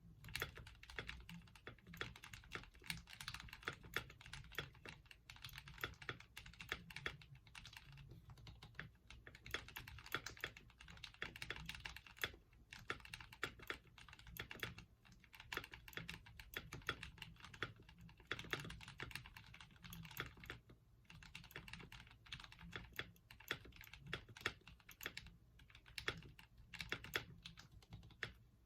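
Typing on a 61% mechanical keyboard with lubed Gateron Milk Black linear switches: quick runs of many soft keystroke clacks, with brief pauses between bursts.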